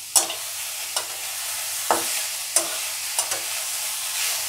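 Chopped vegetables sautéing in oil in a metal kadai, sizzling steadily, while a metal spatula stirs them, scraping and clinking against the pan about six times.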